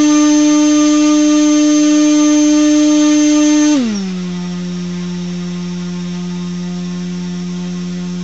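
RTF 2206-2150kv brushless motor spinning a 6x4.5 propeller on a thrust stand, driven by a LittleBee 20A ESC: a steady whine that drops to a lower, quieter pitch about four seconds in as the throttle is stepped down.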